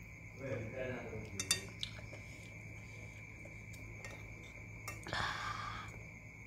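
A spoon clinking against a plate of soup a couple of times, with a brief murmured voice just before. A short scrape near the end.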